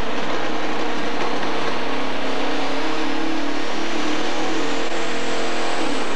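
Turbocharged diesel engine of a pro stock pulling tractor running hard at high revs, a high turbo whine climbing slowly in pitch over it. Near the end the engine note drops.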